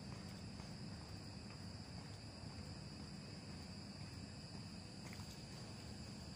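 Steady underground metro platform ambience: a low constant hum with a faint, steady high-pitched whine over it, and no distinct events.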